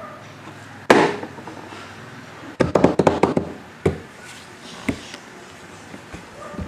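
Plastic water bottle flipped onto a wooden floor: one sharp thud about a second in, then a quick cluster of knocks and taps, and a couple of single knocks later.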